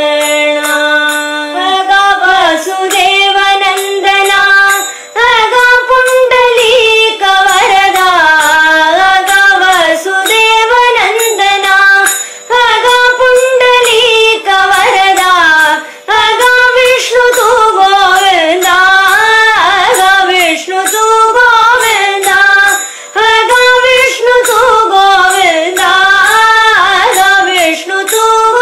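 Women singing a devotional bhajan to Vitthal in Carnatic style, the melody sliding and ornamented over a steady drone, with light percussion keeping time.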